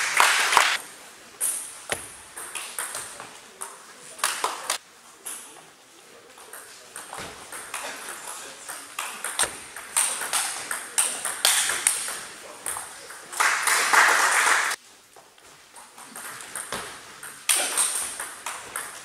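Table tennis balls clicking off bats and table in quick rallies, with more ball knocks from other tables in the hall. About two-thirds of the way in, a louder noisy stretch lasts about a second.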